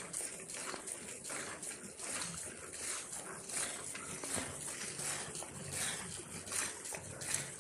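Gir cow being hand-milked: streams of milk squirting from the teats into a metal pot of frothy milk, a rhythmic hissing splash of about two to three squirts a second.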